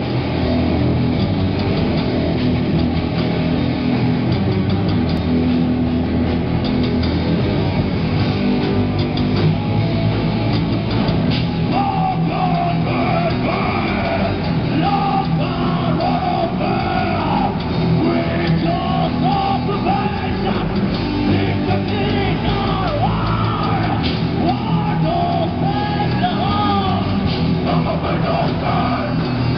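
Live rock band playing loudly through amplifiers, with electric guitars, bass and drums. A singer comes in about twelve seconds in.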